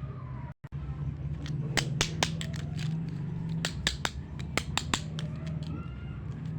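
Small plastic toy pieces clicking and tapping against each other as they are handled, a quick irregular run of sharp clicks over a steady low hum. The sound cuts out for a moment about half a second in.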